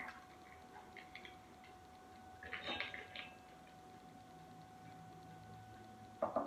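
Faint clicks and taps of ingredients being handled and added to a mixing bowl, loudest about two and a half to three seconds in, then two knocks near the end as the electric hand mixer is taken up. A faint steady hum runs underneath.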